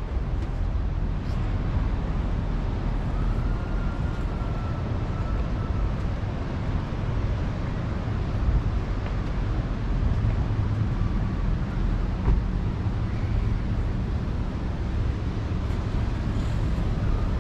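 Steady low roar of ocean surf breaking along the beach.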